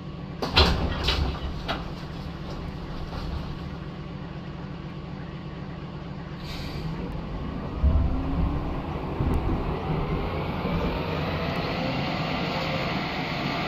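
Stockholm metro train heard from inside the car as it pulls away: a few knocks in the first two seconds, then from about seven seconds in a rising motor whine and growing running noise as the train gathers speed.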